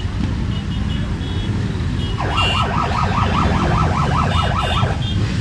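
A column of motorcycles passing at low speed, their engines making a steady low rumble. About two seconds in, a fast yelping siren joins in, rising and falling about five times a second for nearly three seconds.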